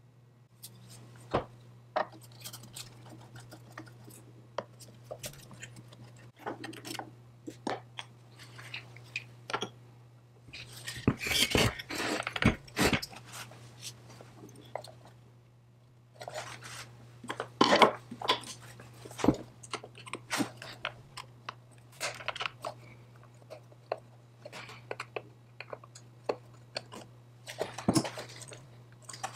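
Small metal chainsaw parts and hand tools clinking, clicking and scraping as they are handled, in irregular bursts with two busier clatters, about eleven and seventeen seconds in, over a steady low hum.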